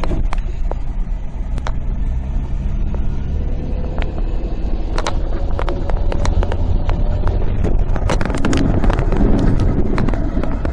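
Car driving on a rough desert road, heard from inside the cabin: steady engine and road rumble with frequent sharp clicks and rattles.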